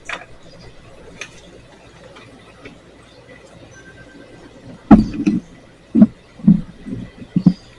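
Wrench working a fence bolt: a couple of sharp metal clicks, then a quiet stretch, then a run of loud knocks and bumps about half a second apart in the second half.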